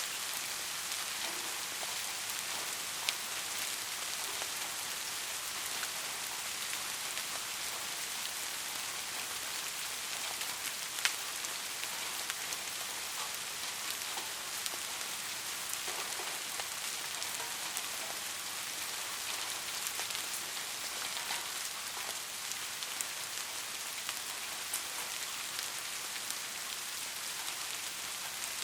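Steady soft rain falling, an even hiss with the distinct taps of individual drops scattered through it, a couple of sharper ones about 3 and 11 seconds in.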